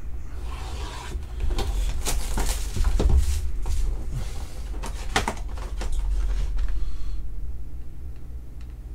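Cardboard trading-card boxes being handled and opened: a run of knocks, taps and scraping of cardboard, the sharpest knock about five seconds in. Under it runs a steady low hum, and the handling quietens near the end.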